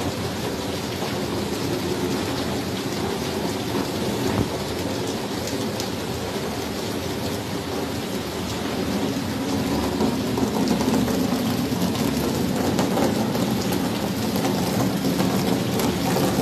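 Steady rain falling, growing a little louder about ten seconds in.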